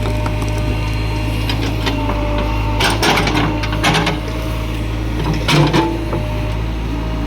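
JCB 3DX backhoe loader at work: its diesel engine runs steadily under a hydraulic whine, with three short bursts of clatter about three, four and five and a half seconds in as it digs.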